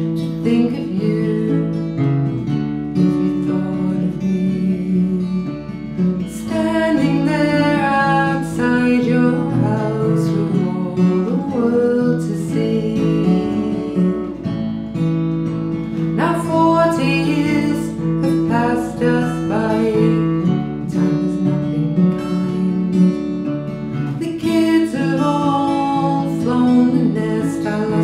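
Two acoustic guitars playing a slow folk song together, strummed and picked chords, with a melody line carried above them at times.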